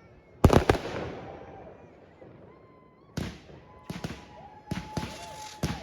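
Fireworks going off: a loud double bang about half a second in that fades away slowly, then a quicker run of sharper bangs and cracks in the second half, with a thin steady whistle among them.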